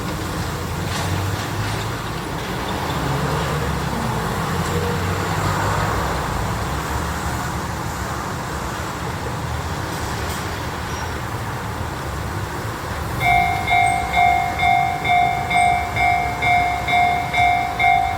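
A steady rumble, then, about thirteen seconds in, a Japanese railroad crossing's electronic warning bell starts, ringing in quick even dings about two and a half times a second: the crossing is closing for an approaching train.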